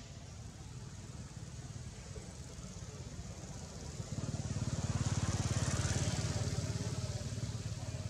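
Engine of a passing motor vehicle: a low, pulsing drone builds about halfway through, is loudest a second or two later, then fades, over a steady low hum.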